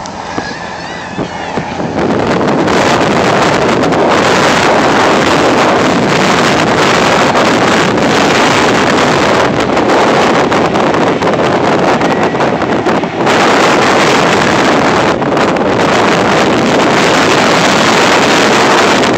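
Wind buffeting the microphone: a loud, steady rush of noise that sets in about two seconds in and barely lets up, dipping briefly once past the middle.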